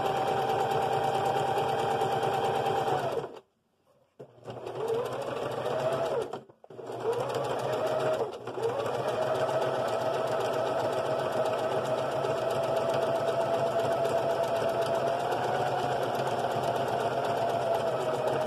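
Electric sewing machine running a zigzag stitch, its motor whirring steadily. It stops about three seconds in and starts again a second later, speeding up. It cuts out briefly twice more, then runs on steadily.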